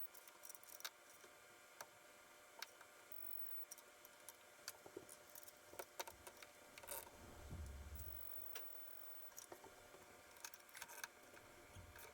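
Faint, irregular clicks and light metallic taps of hand tools and parts being handled, with a brief low rumble about seven seconds in.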